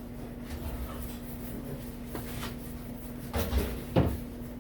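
A few short knocks and clunks, a small cluster about three and a half seconds in and a sharper one just after, over a steady low hum.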